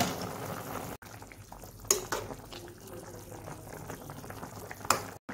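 Pot of fish broth with tomatoes and green chillies boiling steadily, bubbling. Two short knocks, about two seconds in and near the end, from a metal slotted spoon touching the pot.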